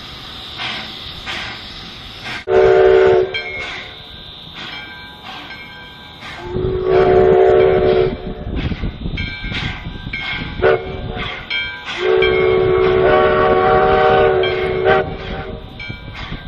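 Locomotive whistle sounding four blasts: a short one, a longer one of about two seconds, a brief toot and a long one of about three seconds. The noise of the train running continues between the blasts.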